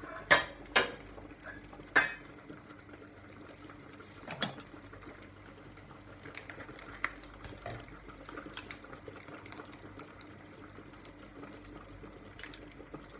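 A stainless steel pot lid clanks against its pot a few times in the first two seconds and once more a little later. Under it a pot of spaghetti boils and a pan of tomato sauce simmers with a steady bubbling and small pops.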